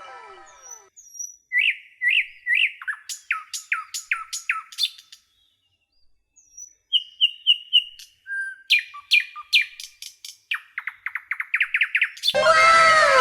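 Bird song: a series of short chirps and down-slurred whistled notes, a pause about halfway, then more chirps ending in a fast trill of rapidly repeated notes.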